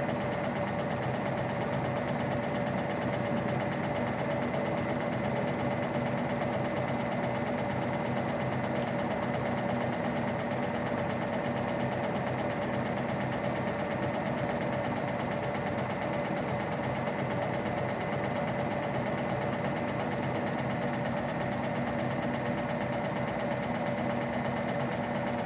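Hajdú Energolux washing machine spinning, its electric motor running at a steady speed with an even hum and a steady whine over a mechanical rumble.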